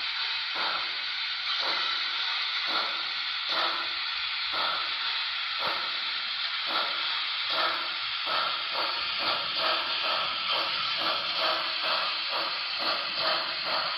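Sound-equipped HO-scale PRR H10 2-8-0 steam locomotive model (Broadway Limited Paragon 2) playing steam exhaust chuffs through its onboard speaker as it moves, over a steady hiss of escaping steam. The chuffs come about once a second at first, then quicken to about two a second from about eight seconds in.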